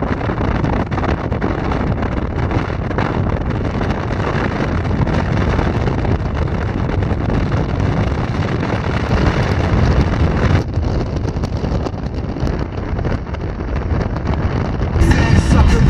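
Strong wind rushing over the microphone, steady and loud. Music comes in near the end.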